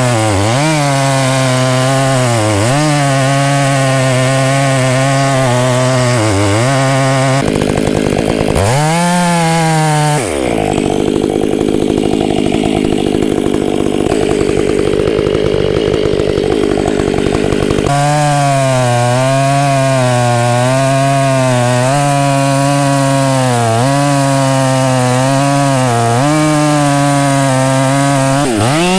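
Fuel-injected Stihl MS 500i chainsaw with an aftermarket exhaust running hard while cutting into a tree trunk; it is pretty loud. Its note dips briefly a few times, and for several seconds in the middle turns rough with no clear pitch before the steady note returns.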